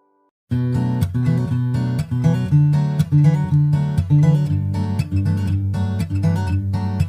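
Background music: a strummed acoustic guitar track that starts abruptly about half a second in after a moment of silence.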